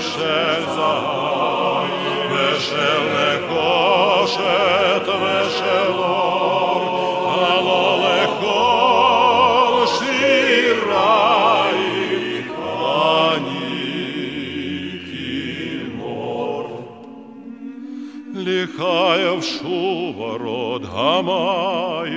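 Music with operatic-style singing, the melody carried with heavy vibrato over an accompaniment; it thins out briefly about seventeen seconds in, then comes back in.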